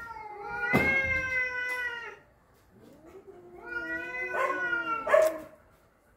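Domestic cats caterwauling at each other in a fight standoff: two long, wavering yowls, the first about two seconds long. The second rises and breaks off in a loud, harsh cry about five seconds in.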